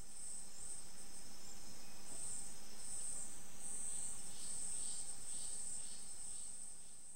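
Tropical forest insects trilling in a steady, high-pitched chorus that swells and eases, with fainter, lower chirps repeating in the second half.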